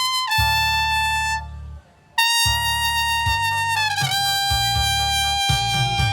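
Trumpet playing a slow melody unamplified, in long held notes. There is a short break for breath about two seconds in, and near the end a held note bends downward into a lower sustained note.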